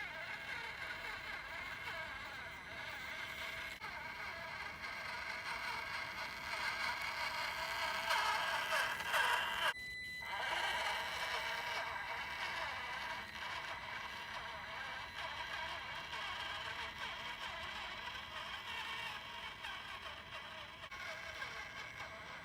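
Small electric motor and gears of a micro RC crawler whining as it drives, the pitch wavering up and down with the throttle. The sound briefly drops out about ten seconds in.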